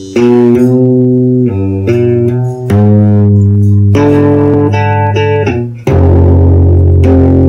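Instrumental band music with plucked guitar chords over a bass line, the chord changing about every second and a half, with a brief gap just before the last change.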